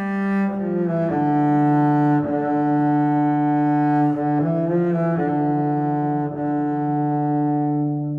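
Background music: slow, sustained low chords in a bowed-string style. The chords shift a few times, then begin to fade out near the end.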